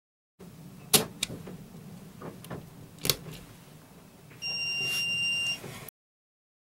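Test button on a boat's ELCI (equipment leakage circuit interrupter) breaker panel being pressed: two sharp clicks about two seconds apart with smaller knocks between, then a steady high-pitched electronic beep lasting about a second.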